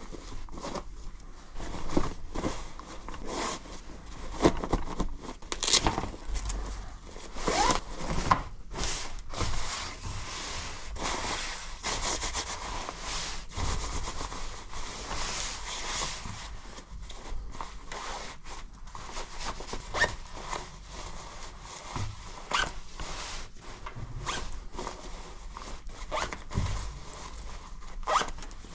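A UATAC Gen 5.6 ripstop jacket handled by gloved hands: nylon fabric and its quilted lining rustling and crinkling in many short scratchy strokes, with zippers on the pockets pulled now and then.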